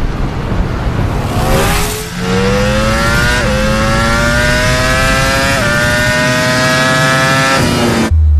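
Ducati Panigale V4 motorcycle engine accelerating hard, its pitch climbing steadily with two quick upshifts about three and a half and five and a half seconds in. It cuts off abruptly near the end, giving way to a deep low rumble.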